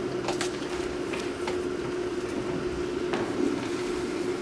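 Room tone in a hall: a steady hum with a few scattered soft knocks and shuffles.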